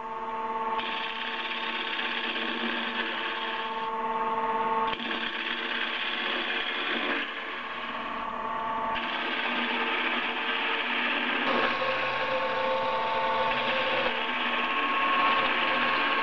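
Wood lathe running with a steady whine while a turning tool cuts the spinning wooden workpiece. The cutting hiss comes and goes in passes of a few seconds each.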